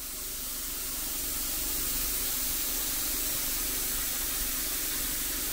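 HVLP paint spray gun spraying a coat of thinned water-based cabin paint: a steady hiss of air and atomised paint.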